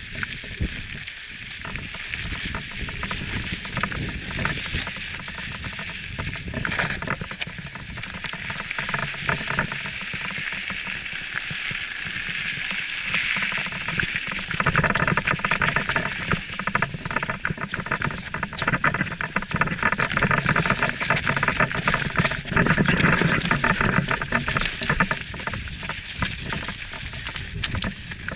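Mountain bike tyres crunching and rattling over loose gravel and rocks on a fast descent, with a dense stream of small clicks and clatter. It gets louder and rougher about halfway through.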